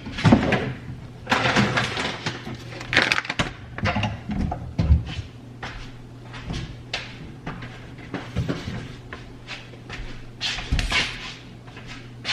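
Kitchen handling noises: plastic grocery bags rustling and crinkling, and items being knocked and set down on counters, in irregular bursts. A steady low hum runs underneath.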